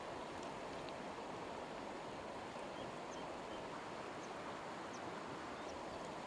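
Shallow, stony stream running: a steady rush of flowing water.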